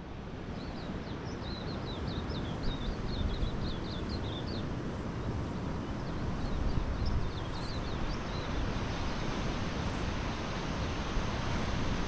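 Small finches twittering in a quick run of high chirps, then a second, shorter run a second or so later, over a steady rush of wind and surf.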